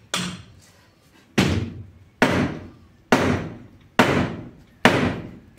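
Six heavy bangs at an even pace, a little more than one a second, each sharp at the start and dying away over about half a second.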